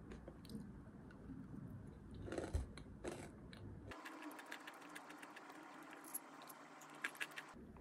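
Granola rattling and clicking lightly as it is poured into a bowl of yogurt, with scattered small clicks.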